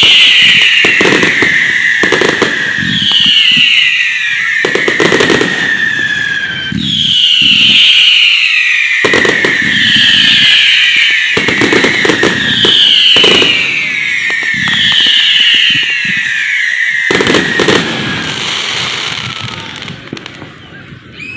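Fireworks going off very close: sharp bangs and crackles with a run of shrieking whistles, each falling in pitch, one every two seconds or so. They die away near the end.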